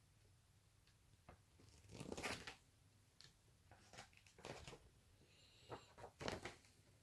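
Snack packaging being handled: a few short bursts of crinkling and rustling, the loudest about two seconds in.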